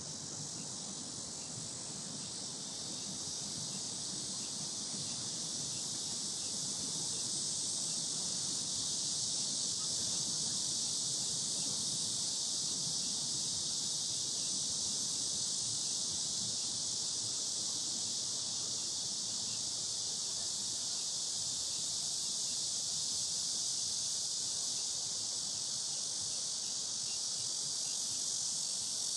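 A dense chorus of cicadas droning in the trees, a steady high-pitched buzz that grows louder over the first several seconds and then holds, with a faint low background rumble beneath.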